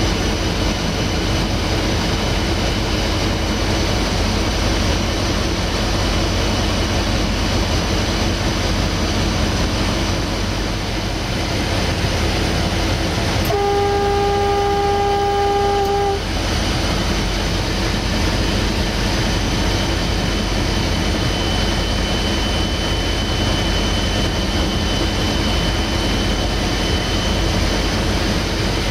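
Steady running noise inside the cab of a 060-DA (LDE 2100) diesel-electric locomotive under way, its Sulzer diesel engine and wheels on the rails. About halfway through, the locomotive horn gives one steady blast of nearly three seconds that starts and stops sharply.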